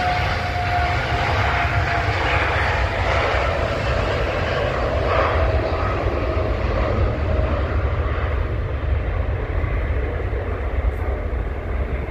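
Jet airliner's engines at takeoff power, a loud steady roar with a whining tone that slowly falls in pitch over the first several seconds.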